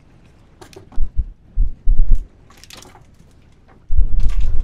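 Wind buffeting the microphone on a small open boat at sea: irregular low rumbling thumps, a few short ones in the first half and a longer run near the end. Twice there is a brief hiss of splashing water at the boatside.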